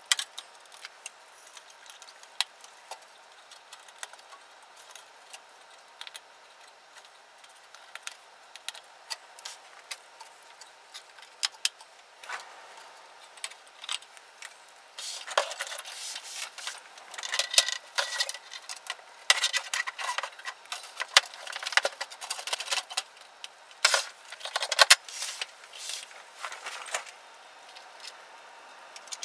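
Clicks, taps and rattles of circuit boards, wiring and the sheet-metal chassis of an opened Denon AVR-2802 receiver being handled during reassembly. Sparse at first, busier and louder from about halfway in.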